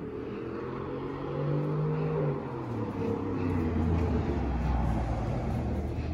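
An engine running, its pitch sliding down over the first three seconds before settling into a steady low drone.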